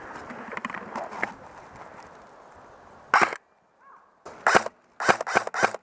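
Airsoft gun shots: one sharp shot about three seconds in, then a quick, uneven string of about five shots near the end, over a low rustling noise of movement.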